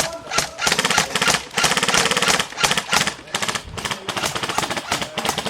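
Airsoft guns firing on full auto: a long burst of closely spaced shots from about a second in, then shorter bursts and scattered shots.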